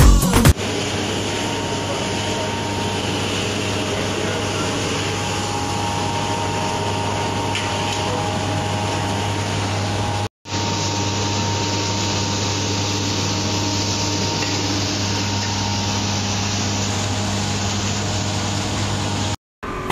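Sawdust charcoal briquette extruder running: a steady low hum with a constant rushing noise from its motor and screw press. The sound cuts out for a moment about ten seconds in and again near the end.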